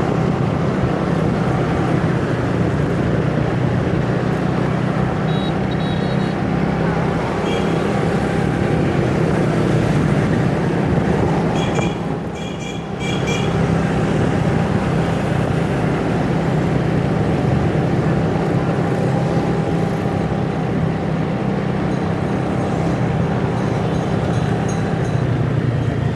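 Motorbike engine running steadily under road and wind noise in city traffic, easing off briefly about halfway through. A few short high beeps come through around the middle.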